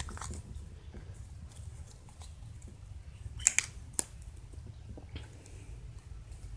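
Hands handling Play-Doh close to the microphone: a low rumble of handling noise with scattered soft clicks and taps, and two sharper clicks about three and a half and four seconds in.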